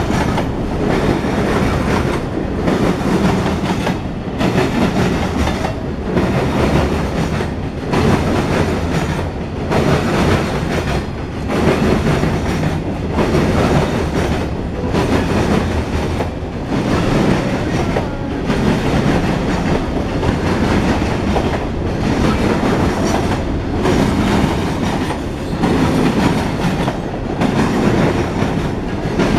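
CSX grain train of covered hopper cars rolling past: a steady rumble and clatter of steel wheels on rail. The sound swells and dips evenly about every two seconds, car after car.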